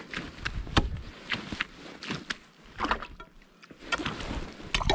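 Ice chisel (spud bar) striking and chopping into lake ice, several sharp irregular blows with a short pause a little past the middle. It is being used to test how thick the ice is.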